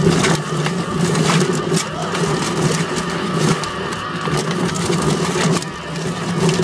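Drum-type chicken plucker running: its motor hums steadily while the spinning plate tumbles a scalded chicken carcass against the rubber plucking fingers, with irregular knocks and slaps and spraying water.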